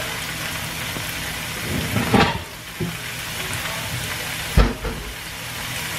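Broccoli (from frozen) and sliced onion sizzling steadily in a hot nonstick skillet. A knock comes about two seconds in and a heavier thud a little before five seconds.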